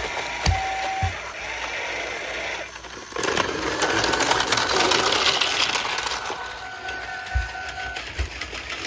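Battery-powered Plarail toy train running on plastic track, its small motor and gears whirring with a fast rattle. The whir dips briefly about three seconds in, then runs louder for a few seconds, and a few low thumps come in between.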